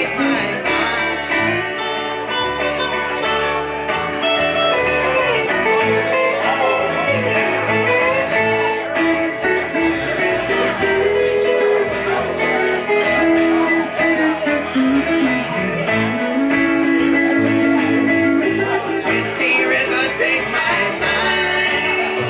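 A live country band plays an instrumental passage: Telecaster-style electric guitar, upright bass and acoustic guitar.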